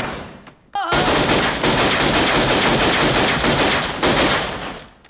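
A pistol shot dies away, then about three-quarters of a second in a rapid, continuous volley of pistol fire lasts about four seconds and fades out near the end.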